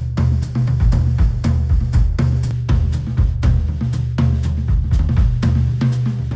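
Instrumental music with a drum kit (snare, kick and hi-hat) over a heavy bass line, played through a Sennheiser headphone and picked up by microphones at the earcup.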